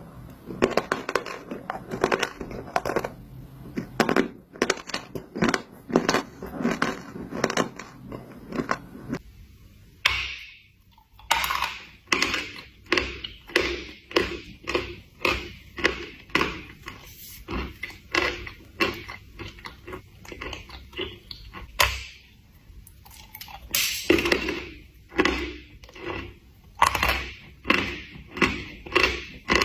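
Chalk being bitten and chewed close to the microphone: a rhythmic run of crunches, about one to two a second, with a short pause about ten seconds in.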